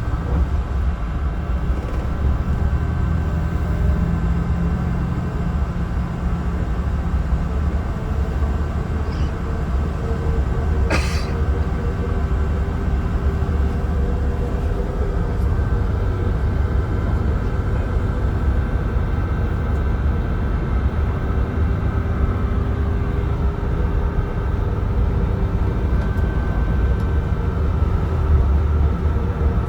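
Mercedes-Benz O307 bus heard from inside the passenger cabin while driving: a steady low engine and road rumble with a faint drone, and a single sharp click about eleven seconds in.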